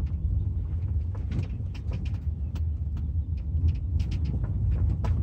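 Car driving on a rough dirt track, heard from inside the cabin: a steady low rumble from the engine and tyres, with frequent short knocks and rattles as it goes over the bumps.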